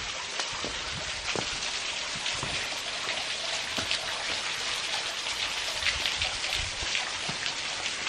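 Waterfall splashing onto rock ledges: a steady hiss of falling water dotted with scattered drips and spatters.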